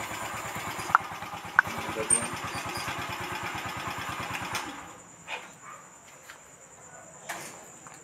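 Motorcycle engine running close by with an even, rapid firing beat, cutting off about four and a half seconds in. Two sharp clicks come near the start, and crickets chirp steadily behind.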